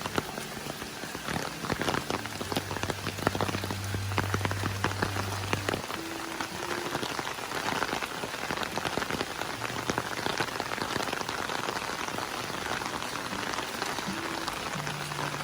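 Steady rain falling on a surface, a dense patter of many individual drops, with a low hum for a few seconds early in the stretch.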